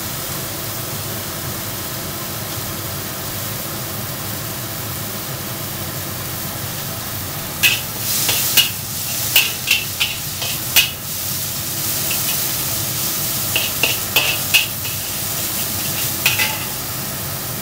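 Chopped ginger sizzling in oil in a wok, a steady hiss. From about eight seconds in, a metal wok spatula scrapes and clacks against the wok in a run of sharp strokes as the ginger is stirred.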